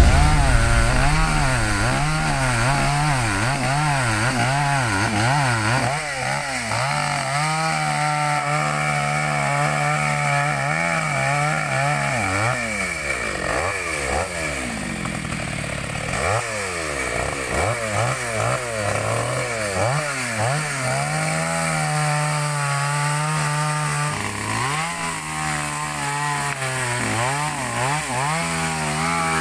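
OGAWA OG6818 two-stroke petrol chainsaw running at high revs, cutting wood. The engine note wavers with the throttle, and twice drops to a lower note before revving back up.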